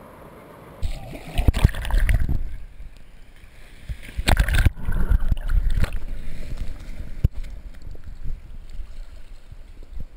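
Seawater sloshing and splashing against a waterproof action camera held at the surface in small waves. Loud gushes, as water washes over the housing, come about one and a half to two seconds in and again about four and a half seconds in, with rougher sloshing between and after.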